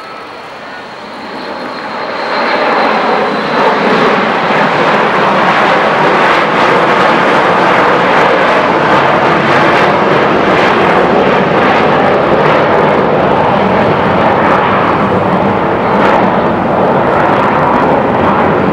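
Boeing 727-200's three JT8D turbofan engines at takeoff power as the jet lifts off and climbs away: a jet roar that swells over the first couple of seconds, then holds loud and steady with a crackling edge. A thin high whine in the first few seconds fades out.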